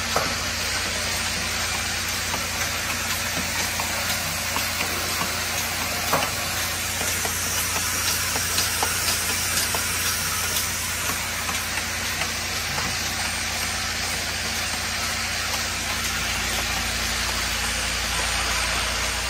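Automatic push-pull cap assembly machine running: a steady hum from its vibratory bowl feeders under a hissing rattle of plastic caps, with scattered light clicks from the assembly mechanism. The low hum grows stronger near the end.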